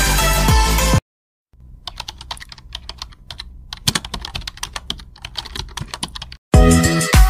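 Typing sound effect: rapid, irregular keyboard key clicks for about five seconds, the sound that goes with text being typed out on screen. Electronic music with a beat plays for the first second, stops abruptly, and comes back loud near the end.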